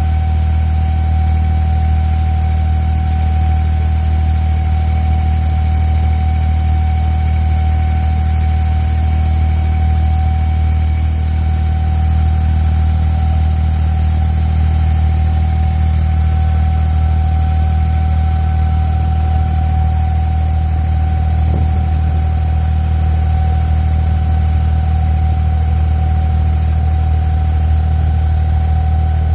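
Passenger boat's engine running steadily: a deep, even hum with a thin steady whine above it.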